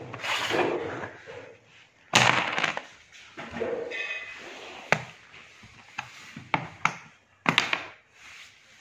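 Carrom striker and wooden carrom men clacking on a wooden carrom board: a handful of sharp wooden clicks, the loudest about two seconds in and several quicker, lighter ones later on.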